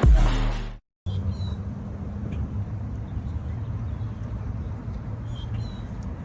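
Intro music fading out, then a steady low hum of road traffic with a few short, high bird chirps.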